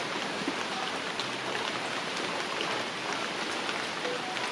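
Steady patter of rain, a dense even hiss of many small drop ticks.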